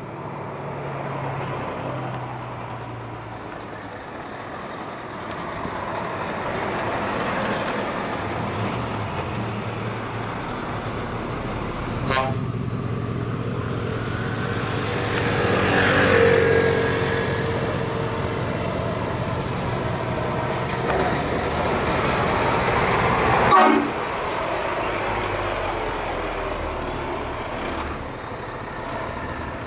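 Heavy diesel trucks, Scania tractor units among them, rolling past at low speed with their engines running. A truck horn sounds about halfway through, and there are two sharp cracks, the louder one about three-quarters of the way in.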